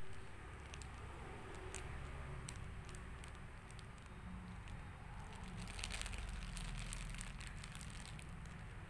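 Plastic wrapping of a diaper pack crinkling and crackling as fingers pick and rub at it, in scattered clicks that come thickest about six seconds in.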